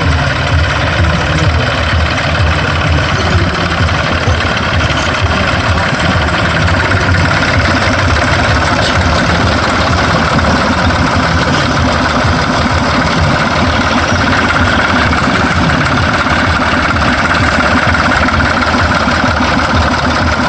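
Six-cylinder diesel engine of a Dutra tractor idling steadily, with an even pulse and no change in speed.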